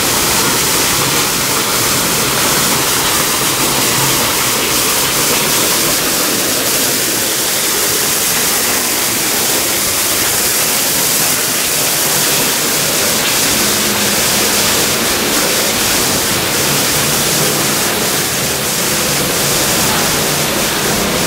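Waterfall pouring down rockwork, a steady loud rush of falling and splashing water.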